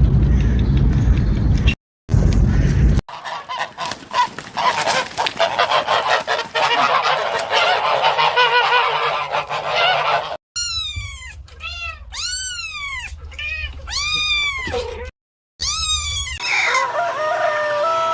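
Animal calls in several short clips cut together: a dense chorus of overlapping calls, then a run of loud single calls that each rise and fall in pitch, about one or two a second, then lower stepped calls near the end.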